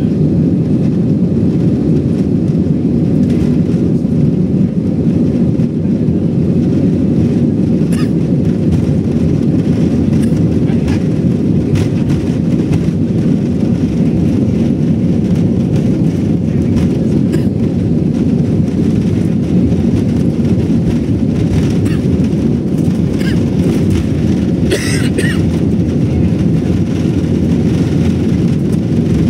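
Steady low rumble of an Airbus A320-family jet airliner's engines and wheels, heard from inside the cabin as it rolls along the runway, with a few faint rattles.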